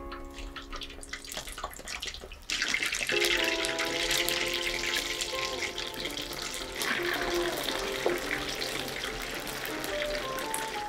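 Battered chicken nuggets deep-frying in oil at 180°C for their second fry. A few light pops at first, then about two and a half seconds in a sudden, loud, dense sizzle of vigorously bubbling oil that keeps on steadily, with background music over it.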